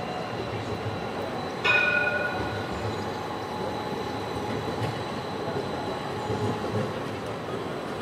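City street traffic with a tram running by: a steady rumble of wheels and traffic noise. About a second and a half in there is a sudden short metallic ring.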